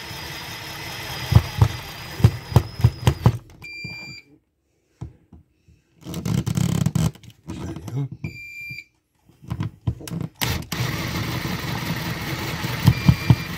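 Cordless drill-driver running in short bursts, driving the screws that clamp an outlet box into the wall, with rapid regular clicking during the first run. An uninterruptible power supply beeps twice, short high tones about four and eight seconds in.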